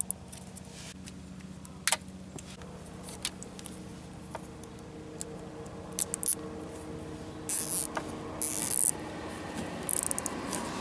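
Plastic cable ties being threaded and pulled tight around a cloth-taped car wiring harness: scattered small clicks of handling, then two short ratcheting zips about three-quarters of the way through, over a faint steady hum.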